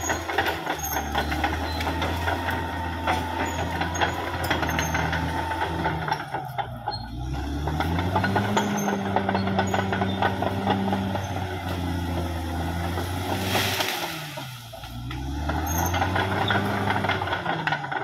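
Caterpillar D6R XL bulldozer working: its diesel engine rises and falls in pitch as it takes load and eases off, dropping away briefly twice, over a steady metallic clatter.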